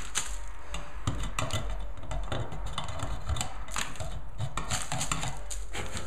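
Irregular small clicks and scrapes of a screwdriver working inside an electrical wall box, clearing out debris around the wires.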